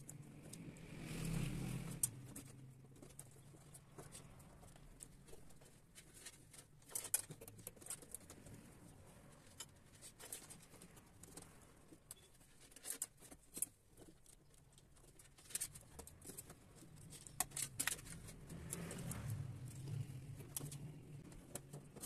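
Faint handling noise of insulated wires being worked into plastic slotted wiring duct: light rustling with scattered sharp clicks and ticks as the wires brush and snap against the duct fingers.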